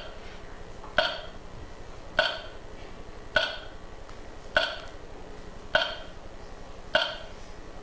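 A struck percussion sound with a short ringing tone, repeating six times at an even pace of about one strike every 1.2 seconds, each ringing briefly before the next.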